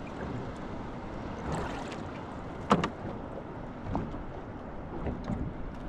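Water lapping against the hull of a small boat, with one sharp knock a little under three seconds in.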